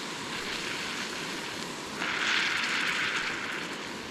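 Steak frying in a pan, a steady sizzle over a constant rushing noise; the sizzle grows louder for a second or two about two seconds in.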